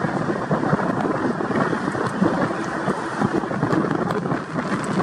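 Gusty wind buffeting the microphone: a steady rough rush with uneven swells and no clear tone.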